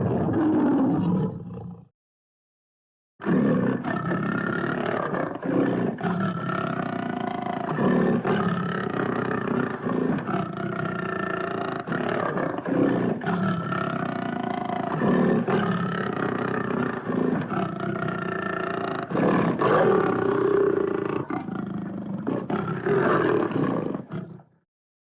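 Cartoon lion's roars from an animated film soundtrack. One roar ends about two seconds in, then after a moment of silence a long unbroken run of roaring and growling follows, rising and falling in pitch, and stops shortly before the end.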